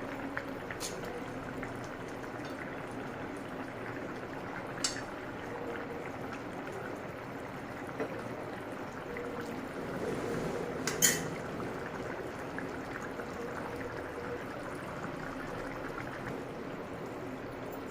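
Chicken curry boiling in a pot, a steady bubbling with a crackly texture. Three short sharp clicks cut through it, the loudest about eleven seconds in.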